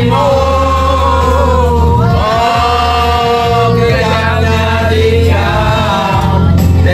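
Music with singing: voices hold long notes, gliding between them, over a steady bass.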